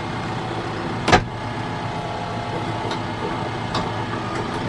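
TYM T654 tractor's diesel engine running steadily, with one sharp knock about a second in and a couple of lighter clicks later.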